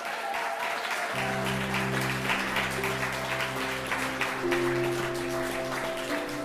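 A roomful of wedding guests clapping and applauding, with soft background music coming in about a second in.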